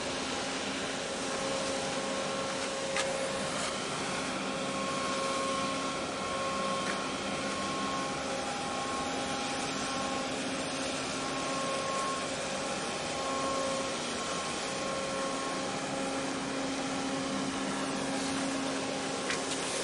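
Steady machinery drone from a huge container ship passing close by: a low hum with several overtones that swell and fade slightly over a constant rushing noise.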